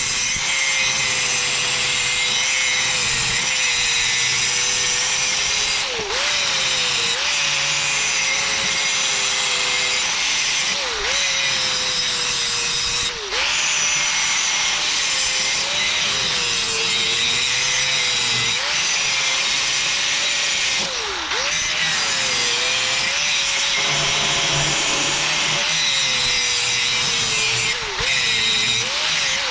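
Angle grinder grinding down weld on a steel PTO shaft tube. Its motor whine dips in pitch each time it is pressed into the metal, over a steady, loud grinding hiss.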